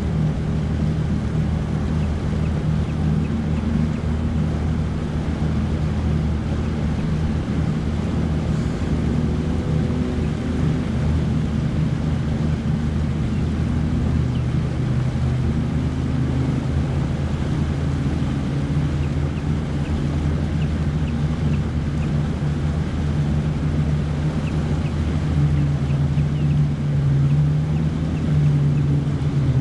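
Bass boat's outboard motor running under way, a steady drone with a rush of wind and water. Its pitch shifts a little near the end.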